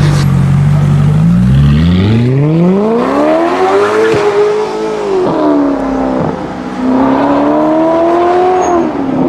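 Mercedes-Benz SLS AMG's V8 with an aftermarket exhaust, running at a steady low pitch and then accelerating hard. The note climbs over a few seconds, falls back about halfway through, climbs again and drops near the end, as when pulling away up through the gears.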